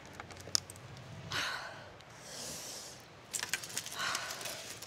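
Light handling sounds: soft rustling, then a quick run of small metallic clicks and jingles over the last second and a half, as a purse with a metal chain strap is gathered up.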